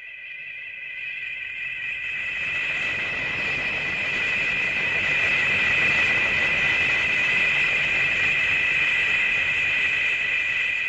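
Showa-era Gamera film sound effect: a steady, high whistling whine over a hiss. It swells up over the first few seconds and starts to fade near the end.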